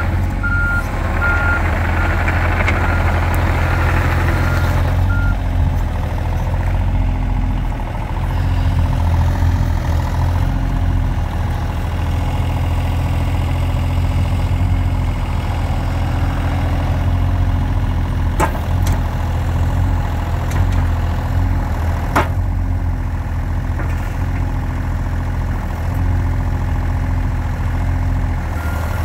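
John Deere 35G mini excavator's diesel engine running steadily as the hydraulic boom, arm and bucket are worked. A travel or backup alarm beeps for the first five seconds or so, and there are two sharp clanks a little past the middle.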